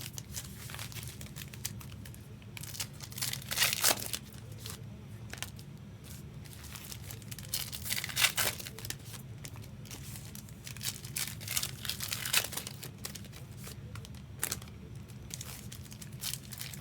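Trading-card pack wrappers being torn open and crinkled, in irregular crackly bursts with a few louder rips, over a steady low background hum.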